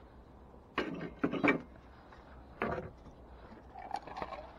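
Handling noise from metal scrap finds: a few knocks and scrapes as a heavy pole is put down and the next piece picked up, in three short bursts about a second apart.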